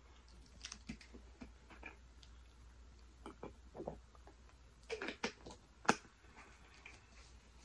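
Faint close-up mouth sounds of eating: soft wet clicks and smacks of chewing. Around the middle come sips and swallows from a plastic drink bottle, with a few louder clicks about five to six seconds in.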